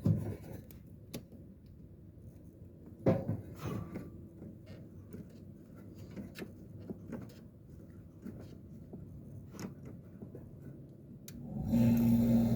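A few sharp clicks and knocks, then about eleven and a half seconds in a 10,000 BTU Kenmore (Whirlpool) window air conditioner starts up: its compressor and fan come on together with a steady hum and a rush of air.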